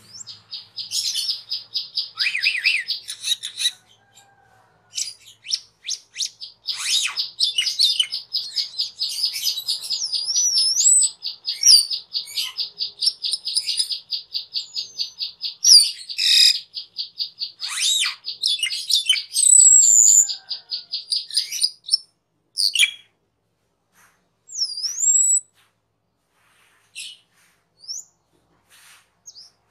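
Asian glossy starling singing: a long, fast, buzzy chatter with high whistled slides and squeaks mixed in. About two-thirds of the way in it breaks off into scattered single whistled calls.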